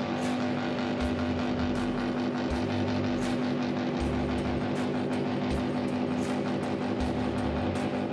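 Motorcycle engine held at steady high revs, with music playing along.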